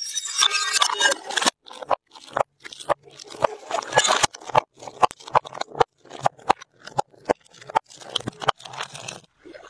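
Glass jars tumbling down concrete steps: a dense crackling smash near the start, then a quick, irregular series of sharp knocks and clatters as they strike step after step.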